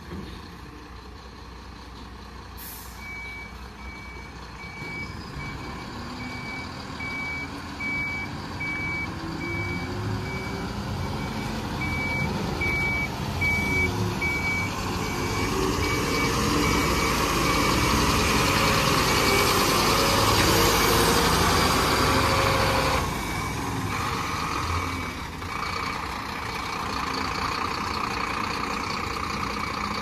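Heavy diesel vehicle's reverse alarm beeping steadily, about one beep a second, over its diesel engine. The engine rises and is loudest for a few seconds near the middle, then eases off abruptly.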